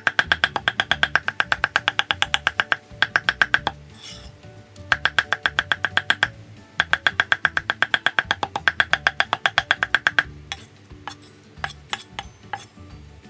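Cleaver chopping grilled tilapia flesh on a thick round wooden chopping block: fast, even knocks about seven or eight a second in runs of a second or more with short pauses, turning to a few scattered strokes near the end. Each stroke rings at the block's own pitch as the fish is minced fine for larb.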